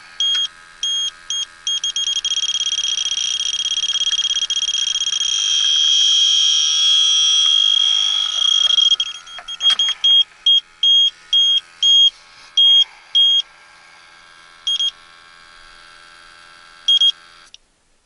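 Handheld TIF electronic refrigerant leak detector beeping. Its beeps quicken into one near-continuous alarm tone for several seconds as the probe picks up escaping R-410A refrigerant from a leak in the evaporator coil. It then falls back to separate beeps that thin out, over a steady hum that stops near the end.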